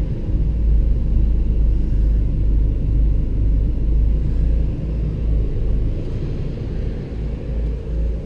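Onan 4000 RV generator running steadily under the load of the roof air conditioner, a continuous low rumble. It keeps running with the load on: the generator has just been repaired and seems to be okay.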